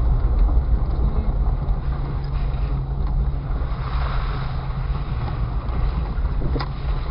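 Inside the cabin of a lifted 1999 Jeep Cherokee XJ driving slowly off-road: the engine runs steadily with a low hum under a rumble of tyre and trail noise. One short knock near the end.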